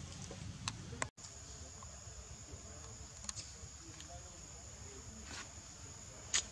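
Steady high-pitched buzz of insects that starts after a brief break about a second in, with a few sharp clicks scattered through it.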